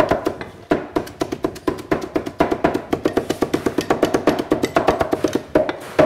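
Steel meat cleavers chopping barbecued pork on a wooden butcher block: a rapid, even run of knocks, several a second, the rhythm of two cleavers working in turn.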